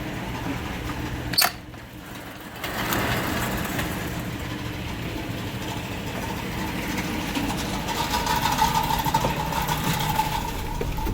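Ford E350's 5.4L V8 engine running with a very bad noise that the owner cannot trace to any one cylinder, the coils having tested good. A sharp click about a second and a half in, after which the sound drops for about a second before coming back; a steady high tone grows louder near the end.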